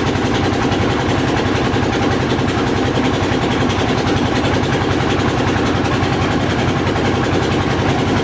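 An engine running steadily at one constant speed: a low drone with a fast, even pulse that does not change.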